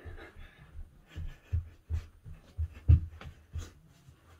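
Feet thudding on the floor as a person dances: a run of irregular low thumps, the loudest about three seconds in.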